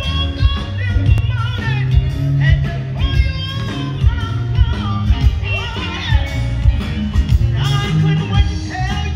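Live blues band playing: a woman singing into a microphone over electric guitar, electric bass and drums, amplified through the stage sound system.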